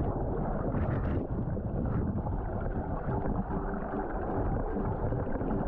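Steady low rushing noise of water and wind on a camera microphone at sea. Faint steady tones come in about three seconds in.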